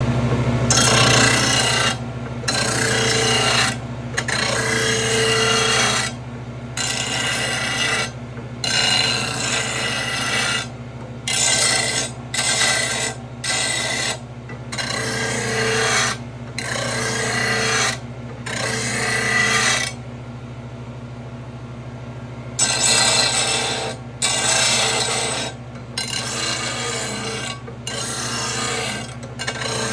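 RBG-712 lawn mower blade sharpener grinding a steel mower blade: its motor hums steadily while the blade is drawn across the grinding wheel in repeated scraping passes of one to two seconds each. The grinding stops for about two and a half seconds about two-thirds of the way through, leaving only the motor hum.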